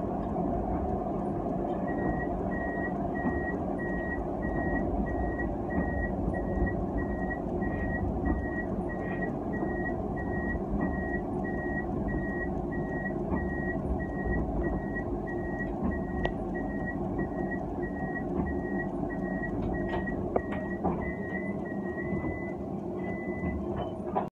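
Cab of a Nottingham Express Transit Alstom Citadis 302 tram under way: a steady running rumble, with a single-pitch electronic warning beep starting about two seconds in and repeating about one and a half times a second. Near the end the beeps run together into one steady tone.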